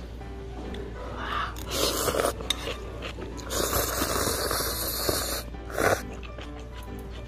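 Background music, with noisy bursts of someone eating ramen: slurping noodles and chewing. The bursts come about two seconds in and again for a couple of seconds from about three and a half seconds in.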